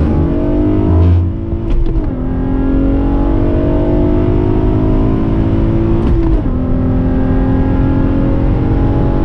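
Acura TL SH-AWD's 3.7-litre V6 accelerating through the gears just after a launch, heard from inside the cabin. The engine note climbs and drops at an upshift about two seconds in, climbs again, and drops at a second upshift about six seconds in, then starts climbing once more.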